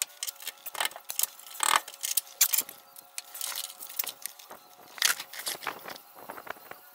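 Wrench clinking and scraping against a steel brake line fitting as it is fitted and turned: irregular sharp metallic clicks, a few louder ones about a second in, near two and a half seconds and around five seconds.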